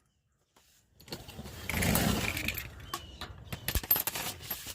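After about a second of silence, a cordless power tool runs in short spells, driving out the truck's skid plate bolts, with metallic clicks and rattles between the runs.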